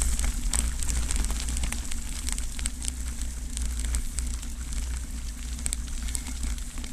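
Bicycle tyres rolling over a wet gravel track, a continuous crackle dotted with small clicks of grit and stones, over a steady low rumble.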